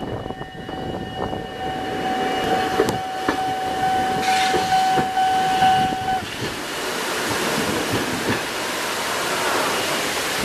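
Railway level crossing warning bell ringing in a steady pitched tone, cutting off about six seconds in, while an Eizan Electric Railway train runs through the station with knocks from its wheels on the rails. Its running noise carries on steadily after the bell stops.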